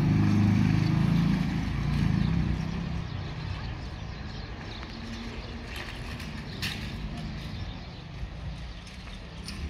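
A small motorcycle's engine running close by as it rides across the tracks and pulls away, fading out about two and a half seconds in; a low, steady rumble continues after.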